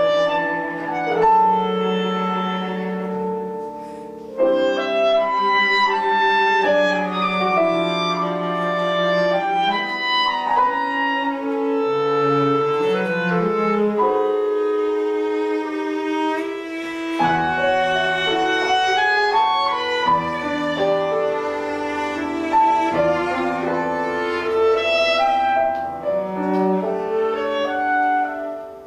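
Piano, clarinet and cello trio playing chamber music: held clarinet and cello lines over the piano, with deeper low notes coming in a little past halfway.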